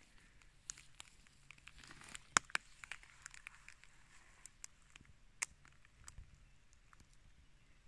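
Faint scattered clicks and light rustling, loudest about two to three seconds in.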